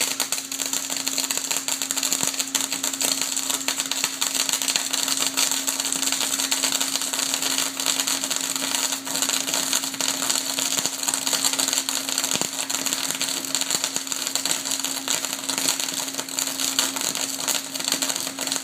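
Flash butt welder flashing a clamped steel bar: a dense, continuous crackling and sputtering of arcing at the joint over a steady electrical hum.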